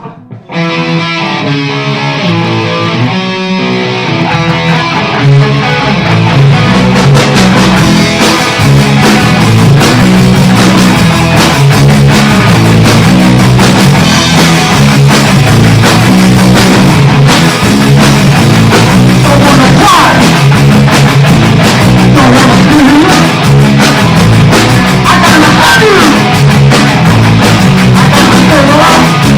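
Punk-rock band demo recording with electric guitars, bass and drum kit. A new song starts half a second in, lighter for the first few seconds before the full band comes in loud around six seconds.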